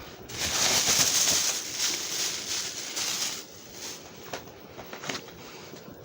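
Rustling and crinkling of DVD packaging being handled, lasting about three seconds, followed by a few light clicks.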